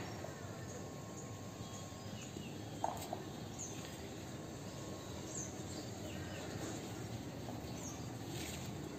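Faint outdoor ambience: a steady low background hum with a few short, high bird chirps scattered through it, and one light tap about three seconds in.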